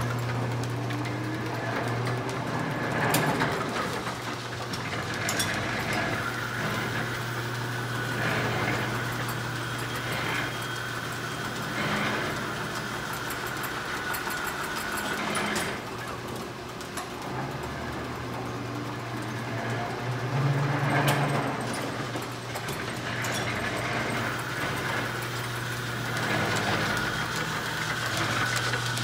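An American Tool Works metal planer, built around 1910–1920, running: a steady low hum from its drive under the clatter of gears, with a sharp clunk every few seconds.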